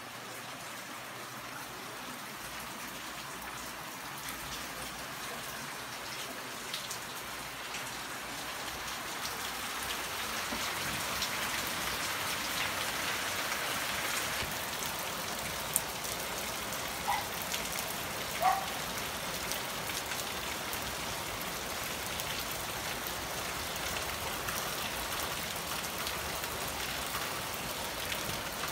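Steady rain falling, growing louder about ten seconds in. A click and a couple of short, faint chirps stand out near the middle.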